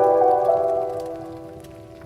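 Soft instrumental background music: a chord struck just before the start rings on and slowly fades, with faint crackling of a wood fire behind it.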